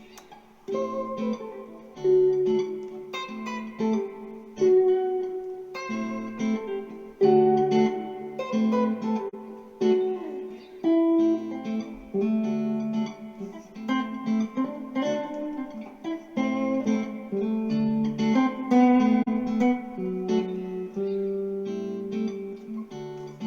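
Instrumental guitar music: single notes picked one after another in a flowing melody over ringing low notes.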